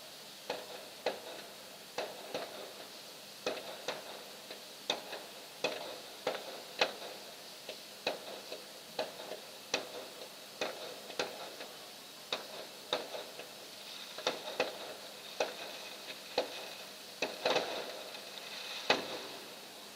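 Fireworks going off in a string of sharp, irregular pops, roughly one a second, each with a short ringing tail. Two of the pops, near the end, are louder and longer.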